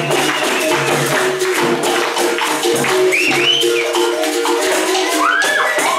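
Capoeira music: berimbaus and a pandeiro with jingles playing a steady rhythm, with hand clapping.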